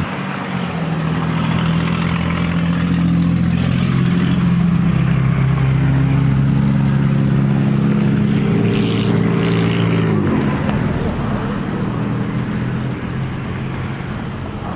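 Pickup truck engine revved while standing still: the revs climb about four seconds in, are held steady, then drop back to idle about ten seconds in.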